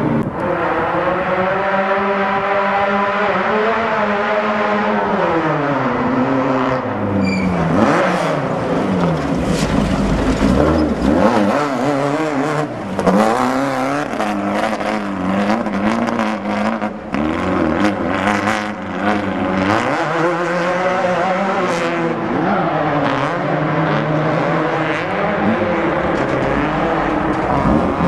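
Off-road racing engines revving hard, the pitch climbing and dropping again and again as the vehicles accelerate and back off through a rocky wash. Scattered sharp knocks and clatters, from rocks and suspension, come through in the middle.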